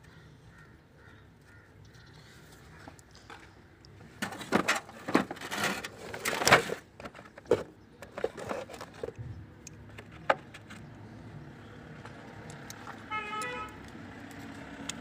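A burst of irregular metallic clinks and clatter for about five seconds, from about four seconds in, as hand tools and bolts are handled at the engine. A short car horn toot sounds near the end.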